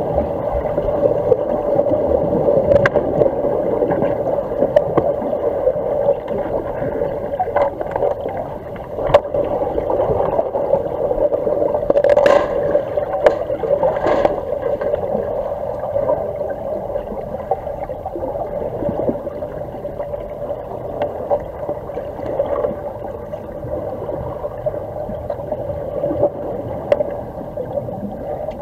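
Underwater pool ambience: a steady hum with scattered sharp clicks and knocks. Around twelve to fourteen seconds in, a louder cluster of knocks and bubbling comes as underwater hockey players scramble at the pool wall.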